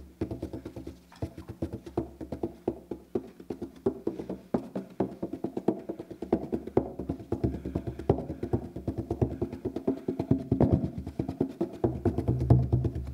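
Concertina playing an instrumental lead-in: held chords with a bass note under them, over a steady beat of sharp knocks several times a second. The bass swells near the end.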